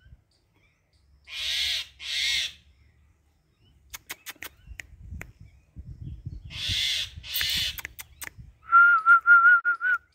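Crow cawing outdoors, two harsh caws in quick succession, then another pair a few seconds later, with scattered clicks between. Near the end comes a loud, rapidly warbling whistle-like call of about a second and a half.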